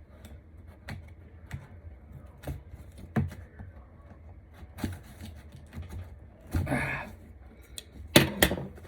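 Small utility knife cutting open a cardboard box, with scattered clicks, scrapes and rustles of cardboard, a short rasping scrape about two-thirds through and a couple of louder knocks near the end.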